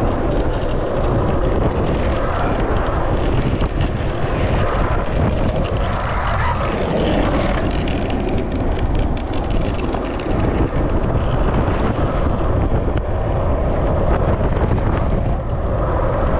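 Strong wind buffeting the microphone at speed, over the steady rolling of longboard wheels on asphalt.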